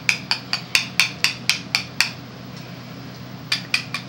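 Hand-held herb grinder clicking as it is twisted, about four sharp clicks a second. The clicking stops about two seconds in and starts again about a second and a half later.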